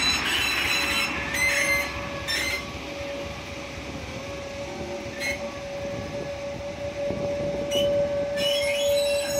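Small diesel locomotive moving slowly along the track, with a steady high-pitched squeal held at one pitch and a few short squeaks in the first few seconds.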